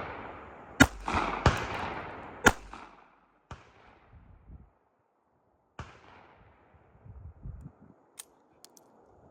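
Sig Sauer P365 .380 pistol firing: a quick string of four echoing shots, then a gap of about three seconds before one more shot, with light metallic clicks near the end. The breaks in the firing are where the new pistol jams.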